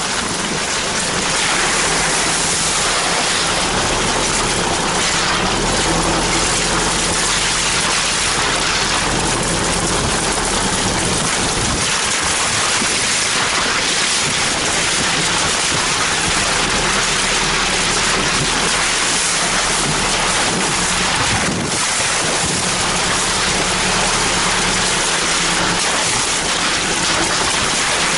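Isuzu four-wheel drive driving along a muddy dirt track: a steady rush of tyre, wind and driving noise with a low engine hum underneath.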